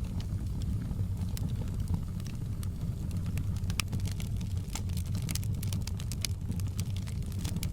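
Wood fire crackling, with sharp pops scattered over a low, steady rumble of the burning logs; the pops come more often in the second half.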